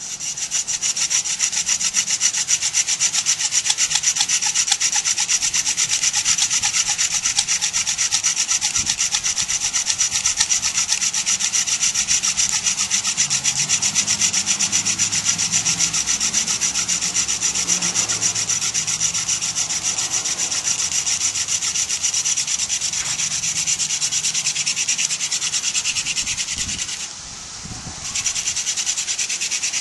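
Friction-fire hand drill: a garden dill spindle tip spun back and forth between the palms, grinding into a balsam fir hearth board in rapid, even strokes with a dry, scratchy rubbing. It breaks off for about a second near the end, then resumes.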